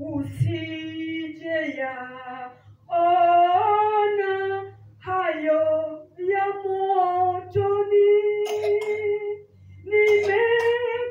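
A woman singing unaccompanied into a microphone in held phrases of a second or two each, with short breaks for breath between them.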